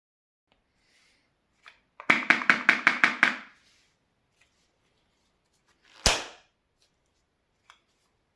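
Rubber balloon: a quick run of about seven short squeaks about two seconds in, then one sharp pop about six seconds in.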